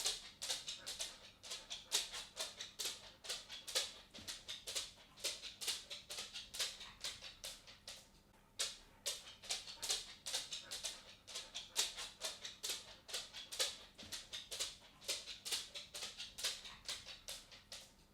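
A cat walking: rapid, light ticking footsteps, about four or five a second, with a short pause about eight seconds in.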